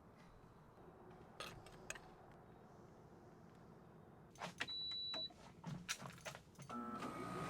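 Quiet handling clicks and knocks, then a single short electronic beep about five seconds in, followed near the end by a louder rush of noise.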